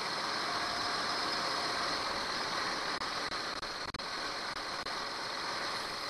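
Nissan Pathfinder engine idling with the air conditioning switched on, heard under the open hood as a steady, even whir.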